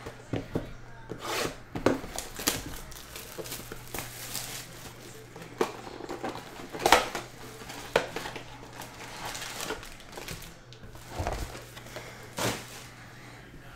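Foil packs of Panini Certified football cards being handled and stacked: irregular crinkles of the foil wrappers and light taps of packs set down, one every second or so.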